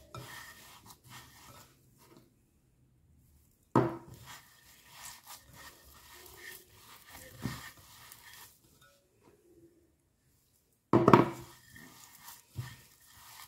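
Hands squeezing and gathering a crumbly sesame-and-flour dough in a glass bowl: soft rubbing and crumbling, with a sudden louder scrape or knock against the bowl about four seconds in and again about eleven seconds in.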